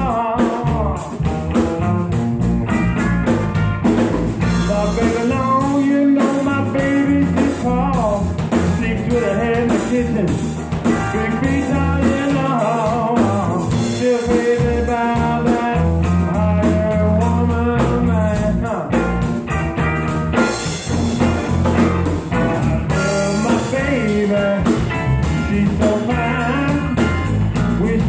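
Live band playing: electric bass, a Pearl drum kit and a semi-hollow electric guitar, with a man singing lead.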